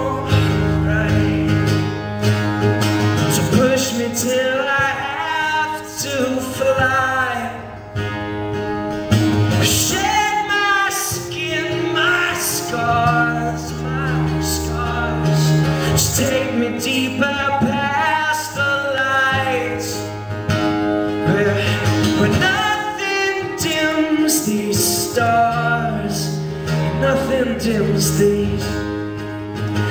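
A male voice singing with a strummed acoustic guitar in a live solo performance.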